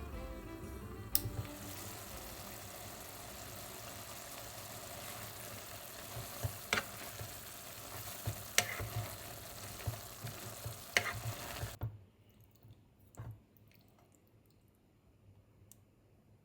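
Food sizzling in a hot pan, with a few sharp taps of a utensil against the pan. It cuts off suddenly about twelve seconds in, leaving a quiet kitchen with a few faint clicks.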